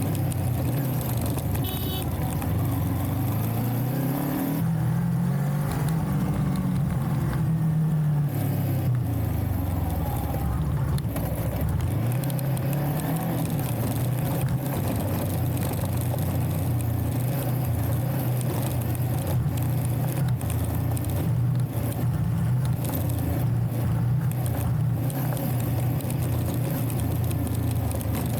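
Motorcycle engine running under way, its pitch rising and falling with the throttle, climbing about four seconds in and again near twelve seconds.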